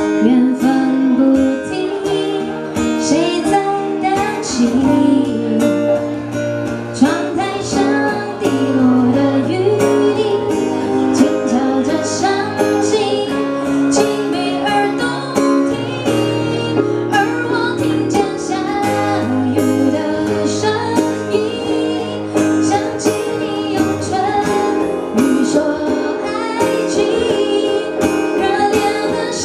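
A woman singing a Mandarin pop ballad live into a microphone, accompanied by strummed acoustic guitar with a steady rhythm.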